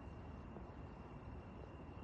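Faint outdoor background noise: a low, even rumble with a thin, steady high-pitched tone over it. No distinct events stand out.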